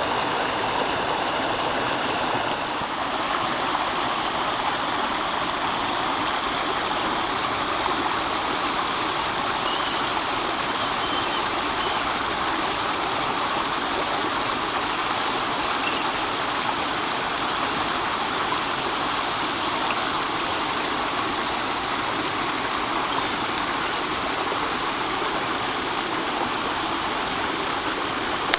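Shallow creek water rushing over rocks, a steady, even rush. A faint high whine stops about three seconds in.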